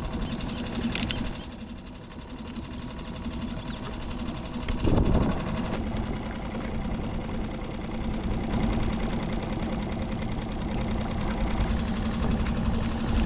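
Small outboard motor on a skiff running steadily at low speed, with a brief rush of noise about five seconds in.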